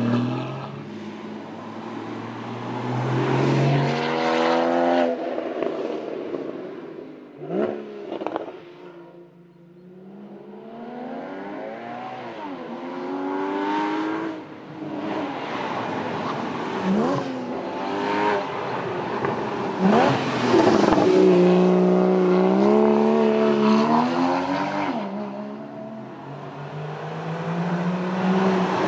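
Porsche Boxster GTS's 3.4-litre flat-six engine revving hard through the gears, its pitch climbing and then dropping at each shift, with a few quick rev blips. It fades between runs and is loudest about two-thirds of the way in.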